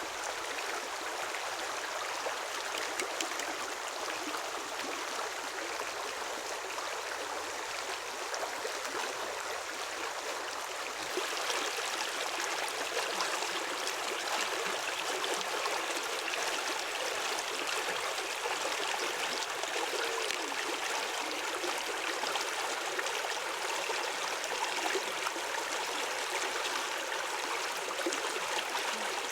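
Running water, a steady flow with a small step up in loudness about eleven seconds in.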